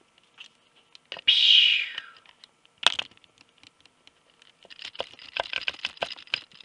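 A short hissing rush about a second in that fades away, a sharp click, then a quick run of light clicks and taps from small plastic toy figures and a plastic cup being handled on a tabletop.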